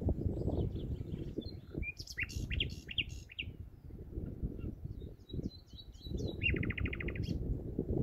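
Common nightingale singing: a run of varied sharp notes, a few short whistles, then a fast trill of evenly repeated notes about three quarters of the way in. A low rumbling noise runs underneath.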